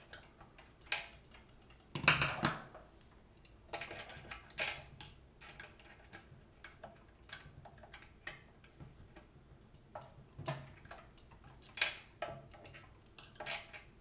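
Irregular metallic clicks and taps of hand tools and small parts worked inside the open crankcase of a 6.5 hp Honda-clone engine, with a louder knock about two seconds in and a couple more near the end.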